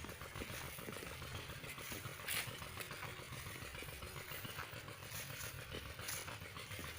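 Motorcycle engine running with a steady low rumble and light rattling, with a couple of sharp clicks.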